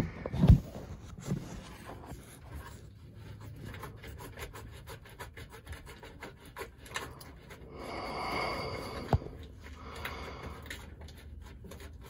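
Close rubbing and scraping of a hand and phone against the inside of the boat's hull while a locking ring is threaded onto the reverse gate cable by hand. A few soft knocks come just after the start and a single sharp click about nine seconds in.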